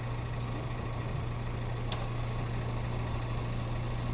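A car's engine and cabin noise, a steady low hum, as the car brakes to a stop. There is one faint tick about two seconds in.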